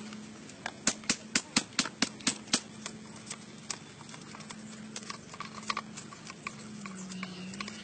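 A bamboo lever press worked against sugar cane, making quick sharp knocks about four a second that stop about two and a half seconds in, followed by only scattered faint ticks.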